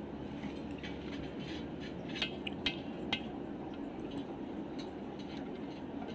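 A handful of light metallic clinks and taps, mostly around the middle, as hand tools and loosened bolts knock against a Mahindra Bolero Maxitruck gearbox's cast rear housing. Under them runs a steady low background hum.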